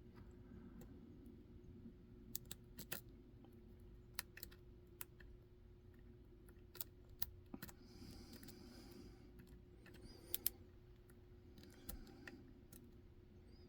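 Faint, scattered metallic clicks of a lock pick probing and lifting the pin stack inside a Dom 333 RN pin-tumbler cylinder, single-pin picking, with a steady low hum underneath.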